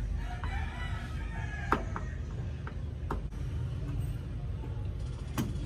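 A rooster crowing in the first two seconds, with a few sharp clicks of hand work on metal over a steady low rumble.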